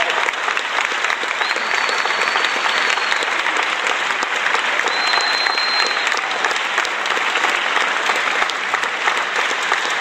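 Steady applause, many hands clapping, with two faint high whistle-like tones.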